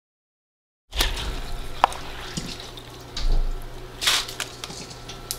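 Silence for about the first second, then soaked purple sticky rice being scooped out of its soaking water with a bowl: water drips and trickles back into the basin, with small clicks and a couple of louder sloshes.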